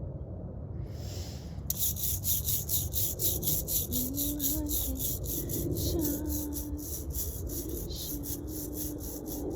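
A rhythmic high rasping or shaking sound, about four strokes a second, that starts suddenly about two seconds in. A faint low wavering tone sounds under it in the middle.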